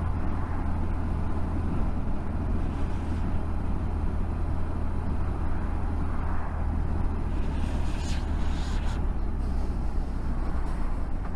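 Motorcycle riding along the road, picked up by a helmet-mounted camera: a steady low wind rumble over the engine and road noise, with a brief brighter rush about eight seconds in.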